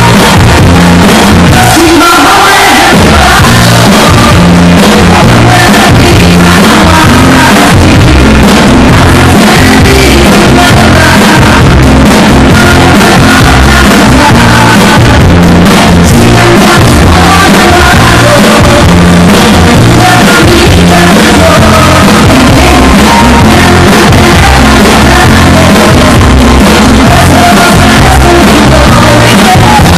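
Live band music played loud through a stage PA: a steady, repeating bass line with guitars and drums, and a woman singing over it.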